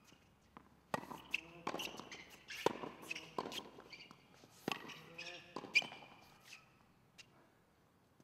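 Tennis rally on a hard court: sharp racket-on-ball hits and ball bounces, about one a second, stopping about six and a half seconds in.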